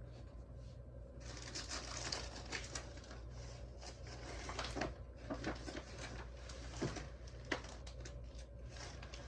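Rummaging: rustling with scattered clicks and knocks as things are moved about and handled while searching for something, starting about a second in, over a steady low hum.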